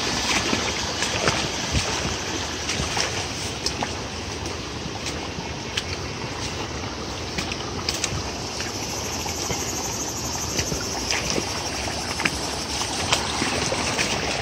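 Small shallow stream rushing and splashing over rocks, a steady babbling noise with scattered sharp splashes or clicks.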